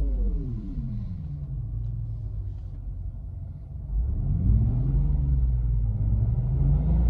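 Synthesised engine sound from a Renault R-Link system's engine sound effect, played through the car's speakers. The pitch falls away in the first second like an engine coming off the throttle, idles low and quieter, then rises again about four seconds in and settles into a louder low drone.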